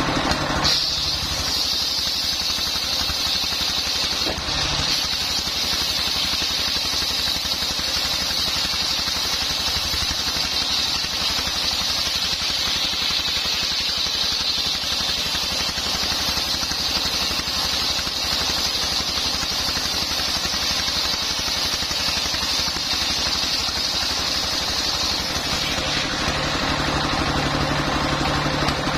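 Homemade belt-driven circular sawmill ripping a long coconut-wood beam: the blade cuts with a steady high whine from about a second in until a few seconds before the end, over the constant running of its stationary diesel engine. The engine's low hum is plainer while the blade is out of the wood.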